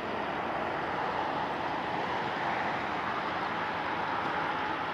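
Boeing 747-400 freighter's four jet engines at take-off power, a steady jet noise that grows slightly louder about a second in and then holds as the take-off roll gets under way.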